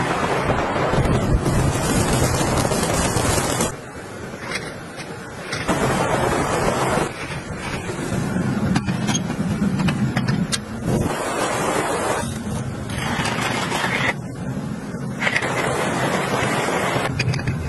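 Blizzard wind blowing hard, a rushing noise that jumps between louder and quieter stretches every couple of seconds.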